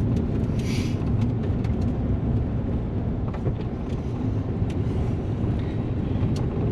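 Ford F-150 pickup driving, its steady road and engine rumble heard from inside the cab, with a few faint ticks.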